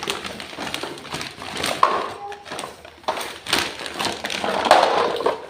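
Toy packaging being torn open and handled: irregular crinkling, crackling and rustling.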